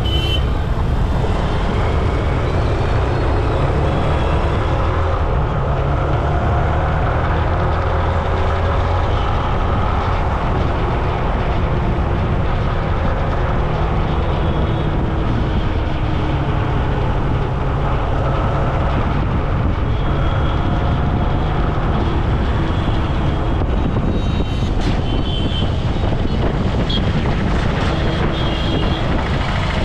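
Steady road traffic noise from vehicles on the move: a continuous low rumble of engines and tyres with a haze of higher road noise over it.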